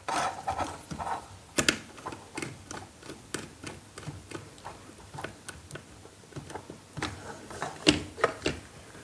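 Light, irregular clicks and ticks of a screwdriver turning the terminal screw of a plastic miniature circuit breaker (MCB) while a wire is handled into it, with a few sharper clicks about a second and a half in and near the end.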